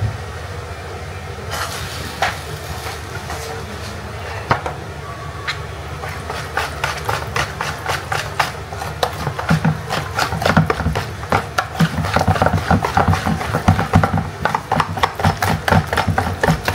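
Wire whisk beating a thick flour batter in a plastic bowl: a few scattered knocks at first, then rapid scraping, clicking strokes from about six seconds in that grow faster and louder toward the end.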